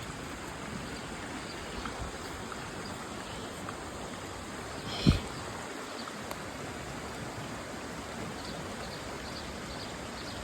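Steady rush of flowing river water, with one sharp knock about five seconds in.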